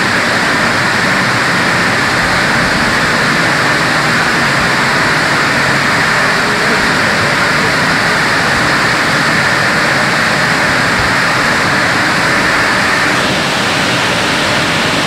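Automatic car wash running: a loud, steady rushing noise that eases slightly near the end.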